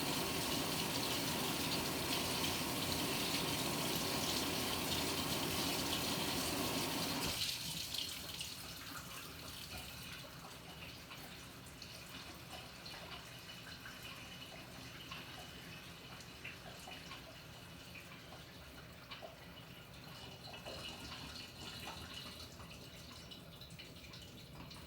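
Water pouring into the tub of a Panasonic NA-FA100H9 top-loading washing machine, cutting off abruptly about seven seconds in as the inflow stops, then scattered drips.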